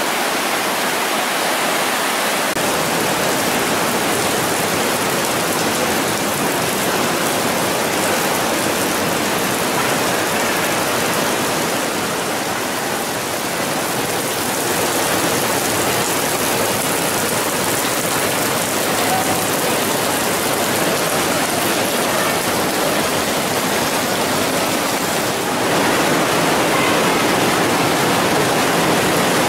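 The Breitach mountain torrent rushing through a narrow rock gorge, a steady, even rush of water that grows louder a few seconds before the end.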